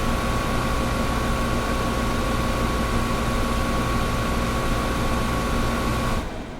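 Air conditioner running steadily, a hiss of moving air with a steady electrical hum. About six seconds in the hum and the hiss drop away suddenly, leaving a quieter low rumble.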